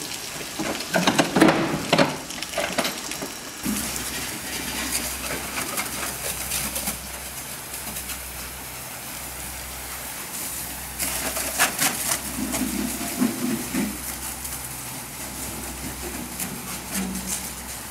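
Pressure washer jet spraying a cattle lorry and trailer: a hiss of water with clattering strikes of spray on the metal body. From about four seconds in, a steady low hum with an even pulse runs underneath.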